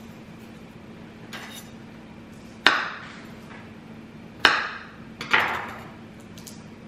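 Kitchen knife knocking down onto a wooden cutting board while trimming garlic cloves: three sharp knocks, the last two less than a second apart.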